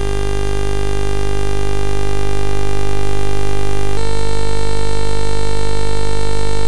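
Oscilloscope-music signal from Max MSP and OsciStudio drawing a wireframe cube: a steady, buzzy synthesizer drone rich in overtones. It grows louder over the first few seconds and shifts slightly up in pitch about four seconds in.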